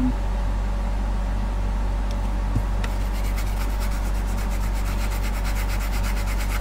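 A toothbrush scrubbing a wetted car blower-motor resistor module to clean it, the bristles rubbing back and forth in quick scratchy strokes that get busier about three seconds in. A steady low hum runs underneath.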